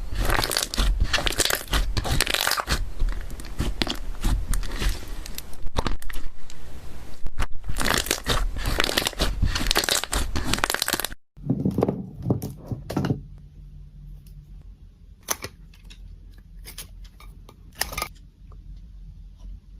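Slime being squeezed and stretched, crackling and popping densely for about eleven seconds. After a sudden cut it turns quieter, with only occasional sharp pops and clicks.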